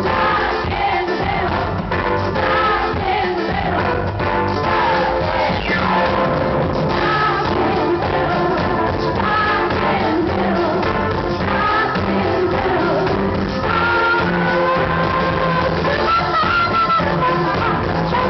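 Live pop-rock concert music: a full band playing with a lead singer, heard from within the audience in a large hall, with the sound cut off above the mid-treble.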